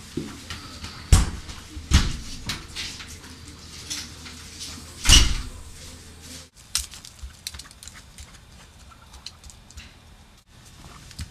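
Several sharp knocks and bangs, the loudest about a second and two seconds in and a longer, heavier one around five seconds in, followed by quieter scattered clicks.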